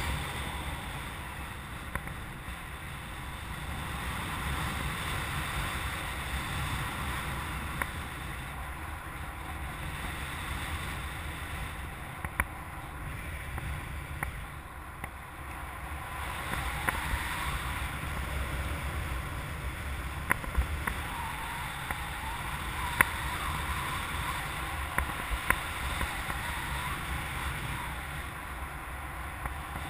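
Wind rushing and buffeting over the microphone of a camera on a hang glider in flight, with a few short sharp ticks in the second half.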